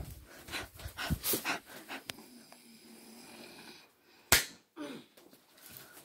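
Breathy huffing with short rustles, a thin click about two seconds in, then a single loud, sharp snap just after four seconds in.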